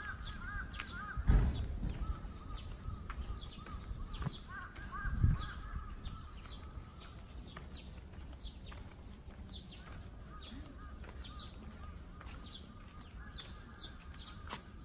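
Birds chirping and calling, with many short high chirps throughout and runs of quickly repeated lower notes in the first half. Two low thumps, about a second and five seconds in, are the loudest sounds.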